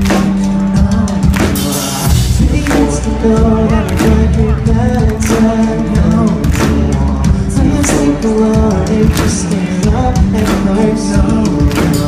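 Pop-punk band playing live at full volume: singing over electric guitars, bass and drums, with a steady drum beat.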